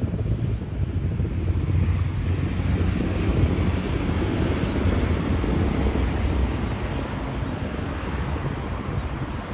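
Wind buffeting the microphone during a bicycle ride: a low, uneven rumble.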